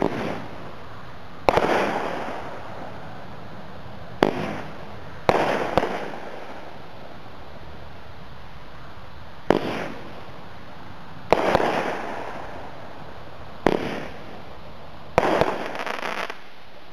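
A Cutting Edge Fireworks 'Total Seduction' consumer cake firing. About eight sharp bangs come at uneven gaps, each followed by a fading crackle, over a steady hiss.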